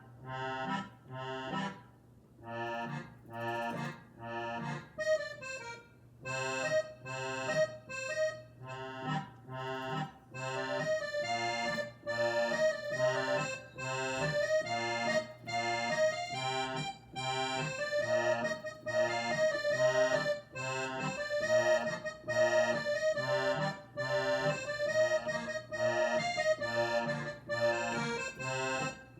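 Roland FP-30 digital piano playing its accordion voice in a stride pattern: bass notes alternating with chords on a steady beat, with a melody line sustained above them.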